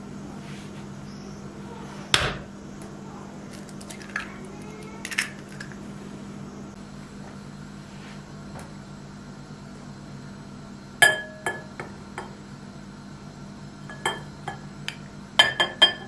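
An egg cracked sharply once about two seconds in, then flour spooned into a glass mixing bowl, a metal spoon clinking and scraping against the glass in short ringing clinks, clustered near the end. A steady low hum runs underneath.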